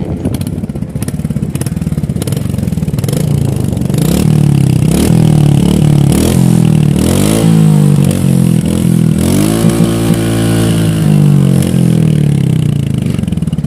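Royal Enfield Hunter 350's single-cylinder engine running at idle, then revved repeatedly with the throttle, its pitch rising and falling with each rev, easing back toward idle near the end.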